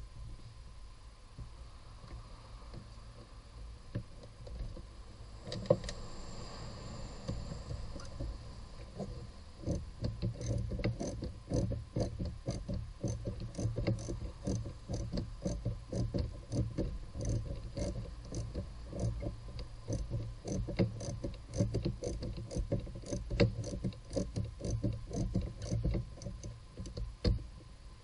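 Hand tool working a fastener under a car's hood: a dense, irregular run of small metallic clicks and rattles, several a second, starting about a third of the way in, after quieter handling with one sharp click.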